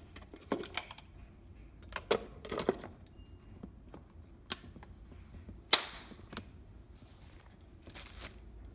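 Scattered clicks and knocks of an Itaki heated lunch box's lid and container being handled and fitted together, the loudest a sharp clack with a brief ring about six seconds in.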